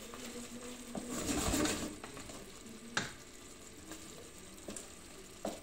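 Wooden spatula stirring meat rolls in a sauce sizzling and reducing in a steel pot, with three knocks of the spatula against the pot, the sharpest about three seconds in.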